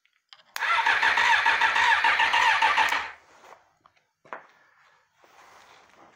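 Electric starter cranking the 2001 Suzuki GSX-R600's inline-four engine on jumper-cable power, starting about half a second in and running for about two and a half seconds before stopping abruptly. The motor turns over but does not fire.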